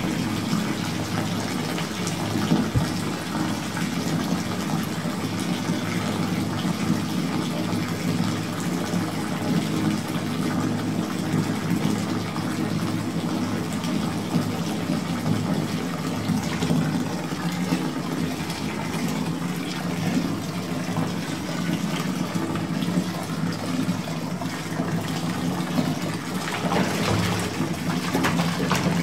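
Water running into a bathtub: a steady, unbroken rush with a few small splashes and ticks through it.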